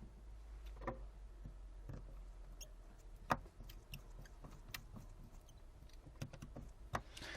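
Faint scattered clicks and scratching of a small screwdriver driving screws into an iPhone 5C, with a few sharper clicks among them, over a steady low hum.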